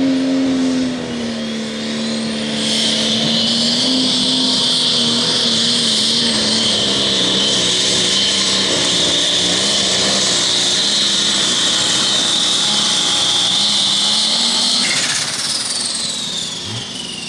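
Super Stock pulling tractor's turbocharged diesel engine running hard. A high turbo whine rises in about two and a half seconds in, holds steady, and falls away near the end as the engine drops off.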